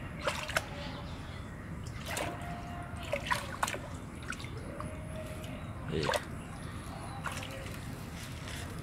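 Hands groping and splashing in shallow, muddy pond water while hand-fishing for small fish. There are short irregular splashes and drips, the loudest about six seconds in.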